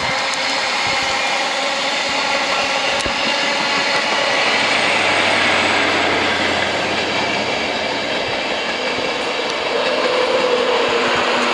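Virgin Trains East Coast intercity passenger train running past on the main line: a steady rush of wheels on rail with some rhythmic clatter, and a low hum that rises in the middle and then fades.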